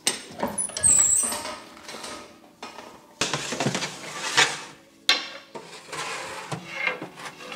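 Metal clanks and scrapes of an old multi-deck bakery oven's iron doors being worked and a metal baking tray of loaves being slid in, with a short high metallic squeal about a second in.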